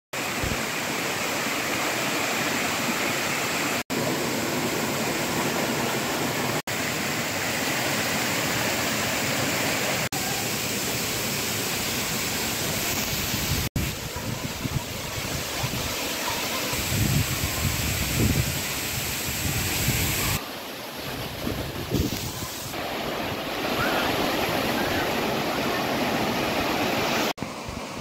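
Rushing white water of a rocky stream and a tall waterfall, a steady rush broken by brief dropouts where short clips are cut together. In the second half, gusty low rumbles come and go over the water.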